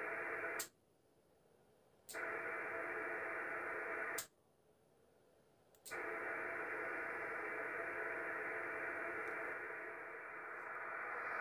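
Band-noise hiss from a Yaesu FT-450D transceiver's speaker, tuned to 27.565 MHz on 11 metres, cutting out twice for about a second and a half, with a click as it stops and as it comes back each time.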